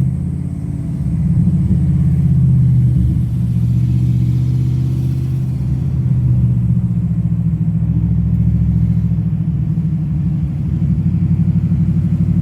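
Holden VF Commodore SSV Redline's 6.0-litre V8 running steadily while driving, heard through an open window: a deep, even engine note with small swells in level and no big revs.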